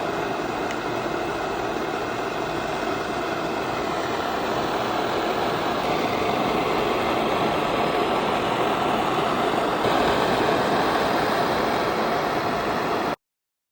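Soviet PT-1 pressurized gasoline stove burner running: a steady rushing burner noise that grows a little louder over several seconds, then cuts off abruptly near the end.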